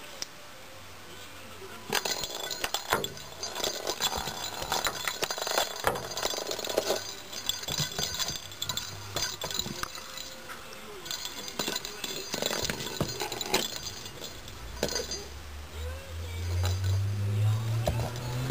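Bell inside a perforated plastic cat ball jingling and rattling as a kitten bats and chases it, with irregular clicks and knocks starting about two seconds in. A low hum grows louder near the end.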